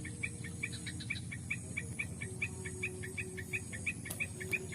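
Rapid, regular chirping, about five short chirps a second, from a small animal calling in the open, over a faint high steady insect-like whine.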